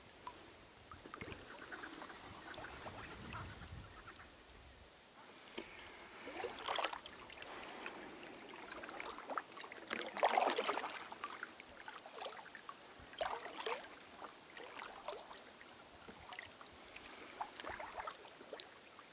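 Kayak paddle dipping and pulling through river water, a short watery splash and swirl every few seconds, the loudest about halfway through.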